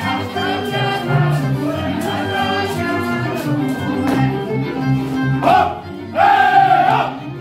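Live folk dance music with voices singing along. A voice rises loudly twice near the end.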